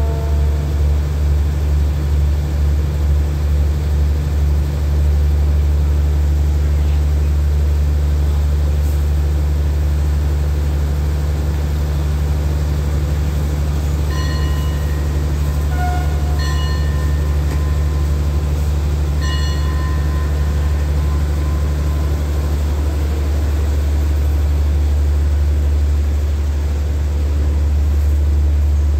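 A standing diesel passenger train idling at the platform: a steady low rumble that pulses slightly for the first few seconds, with a few short high tones around the middle.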